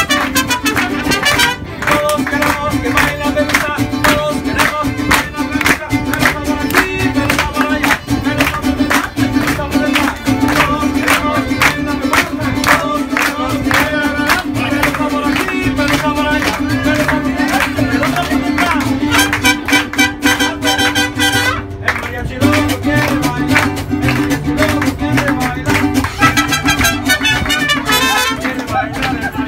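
Live mariachi band playing an upbeat dance tune, with strummed guitars keeping a steady rhythm under the melody.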